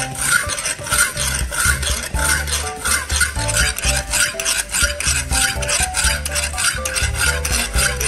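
Wet sharpening stone rubbed quickly back and forth along a kitchen knife's edge in a rod-guided jig: a rhythmic rasping scrape, about two strokes a second. Background music plays underneath.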